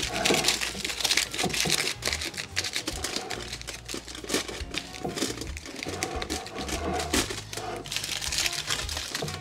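Aluminium foil crinkling and crackling in a dense run of small clicks as hands crimp and fold it tightly around the mouth of a clay tangia pot to seal it.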